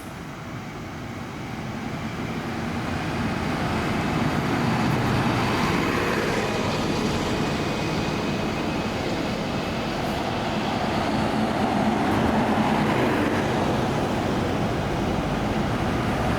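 Buses driving past in a line, their engines and tyres a steady rumble that grows louder over the first few seconds and then holds.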